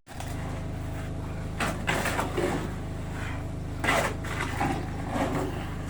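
A steady low motor hum with a few short knocks and scrapes of building work on top.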